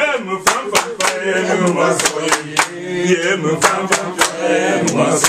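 Several voices singing together over rhythmic hand clapping, about three claps a second.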